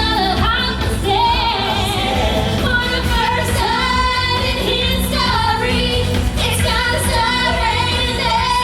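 A pop song playing loud, with a sung lead vocal over a full backing track.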